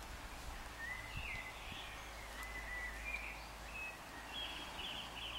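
Faint bird song over steady outdoor background noise: a few whistled glides, then a short warbling trill near the end.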